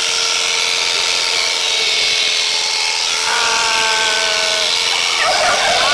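Electric sheep-shearing handpiece running steadily as it cuts through an Icelandic sheep's fleece: a constant motor hum with a hissing buzz from the cutter. A short steady tone sounds about halfway through.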